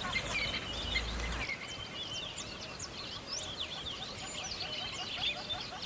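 A dense chorus of many songbirds chirping and singing at once, quick high chirps and whistles over a lower run of rapidly repeated short notes. About a second and a half in, a background rumble and hiss cut off abruptly while the birdsong goes on.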